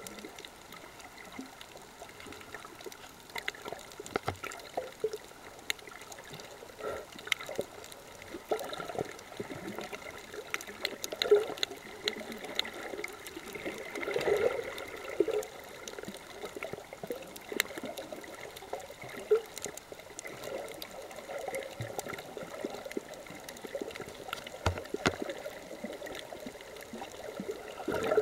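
Underwater water noise picked up by a camera submerged over a reef: uneven sloshing and gurgling, muffled, with scattered short clicks throughout.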